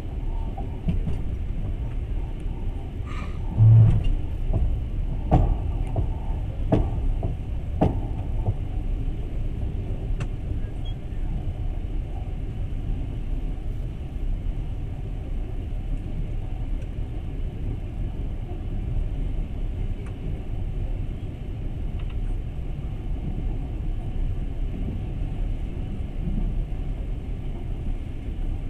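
Passenger train running at speed, a steady low rumble of wheels on rails heard from inside the carriage. A few sharp knocks come between about three and eight seconds in, the loudest a thump near four seconds.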